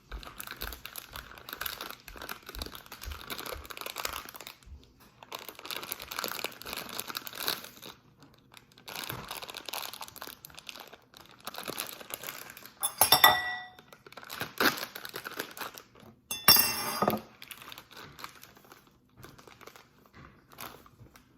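Plastic baking-mix packaging crinkling and rustling as it is handled and opened, in several stretches. Two louder clinking knocks against a dish ring out about 13 and 16–17 seconds in.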